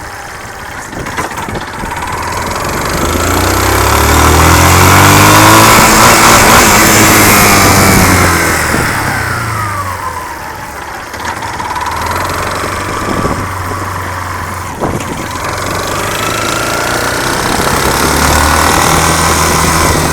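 Yamaha Fazer 250's single-cylinder engine revved slowly up, held high for a few seconds and let back down to idle about halfway through, then revved up again near the end. Under it is the loud noise of a worn connecting rod.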